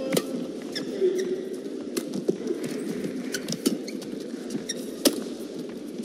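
Badminton doubles rally: sharp racket-on-shuttlecock hits at uneven intervals, with court shoes squeaking on the court mat between them over a steady arena crowd murmur.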